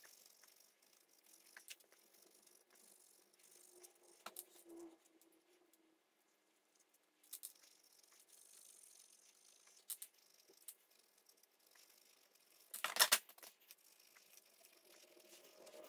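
Faint, scattered scratching of a red Scotch-Brite pad scrubbing old silicone sealant off the transfer case's magnesium mating surface, with a short louder burst of scrubbing about 13 seconds in; otherwise near silence.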